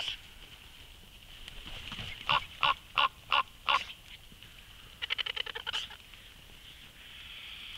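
Common raven calling: five loud, harsh croaks in quick even succession, then a short rapid rattling call, over a faint steady high hiss.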